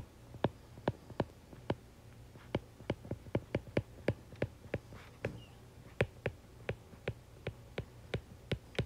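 A stylus tip tapping on a tablet's glass screen while handwriting words, an irregular run of light, sharp clicks about three a second.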